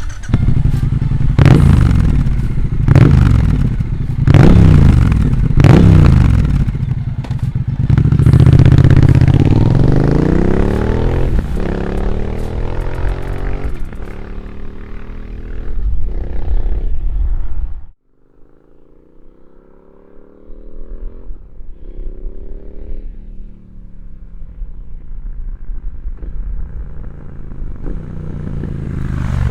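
Triumph Speed Twin 1200's parallel-twin engine through REMUS aftermarket exhaust mufflers, blipped sharply four times, then held at higher revs and let fall back. After an abrupt drop it runs quieter with its pitch sliding down, then builds again near the end.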